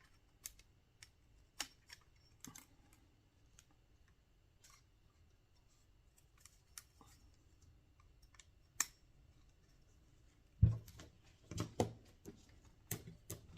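Light, scattered clicks and taps of small hex spacers and frame parts being handled and fitted on a helicopter frame, with a heavier knock about ten and a half seconds in followed by a few quick clicks.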